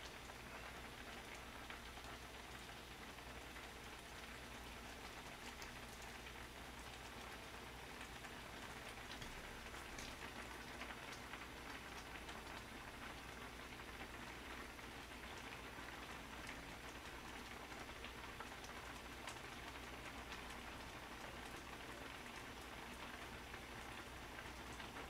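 A pot of kimchi seafood udon simmering on a gas burner: a faint, steady bubbling crackle.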